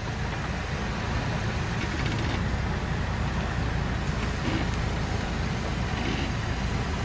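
Hummer H3 engine running steadily at a slow crawl, with a continuous low rumble.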